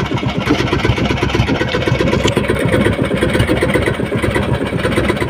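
Outrigger bangka's engine running steadily with a fast, even chug.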